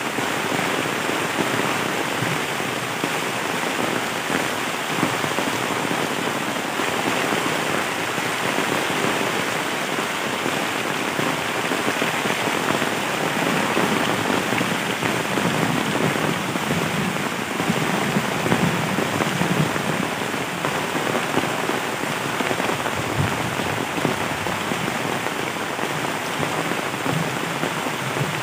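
Heavy rain pouring steadily onto bamboo and banana leaves and the leaf-covered ground, an even, unbroken hiss.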